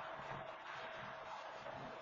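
Freight train of covered hopper cars rolling past, a steady hiss of wheels on the rails with a faint steady tone underneath.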